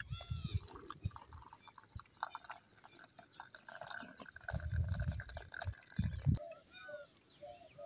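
Tea poured from a metal pot through a mesh strainer, a thin stream splashing into a ceramic mug, with an animal bleating briefly at the start and again near the end. A few low rumbles come and go, loudest about five seconds in.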